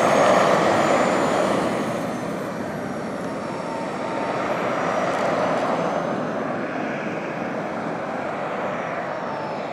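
RC model jet flying, a rushing jet noise with a thin high whine that fades, swells again about five seconds in, and dies away near the end as it passes.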